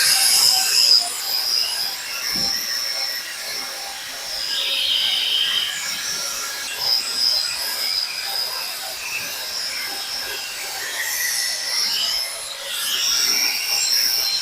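Hoof grinder with a carbide-tipped disc grinding down a cow's hoof horn: a high whine with rasping that swells and eases as the disc is pressed on and lifted off.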